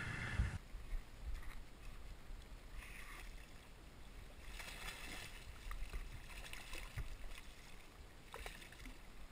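A hooked striped bass thrashing at the water's surface as it is reeled in, in several short bursts of splashing. A brief knock sounds just after the start.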